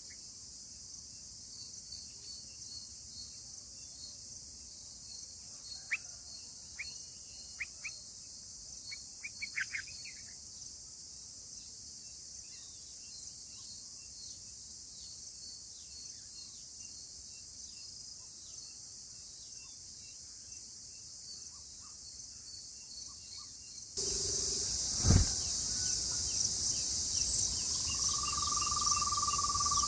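Steady high-pitched insect chorus, with a few short bird chirps about six to ten seconds in. About 24 seconds in the sound turns abruptly louder, with one sharp knock and then a held whistle-like note near the end.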